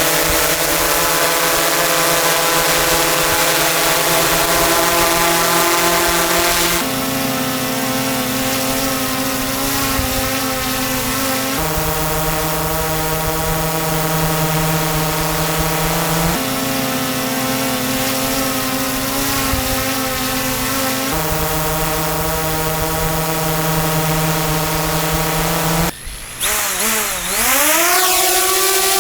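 Small DJI quadcopter drones hovering: the propellers give a steady multi-tone hum. Every five seconds or so it switches abruptly between two drones with noticeably different pitches. Near the end the sound cuts briefly, then a drone's pitch sweeps down and settles into a steady hover.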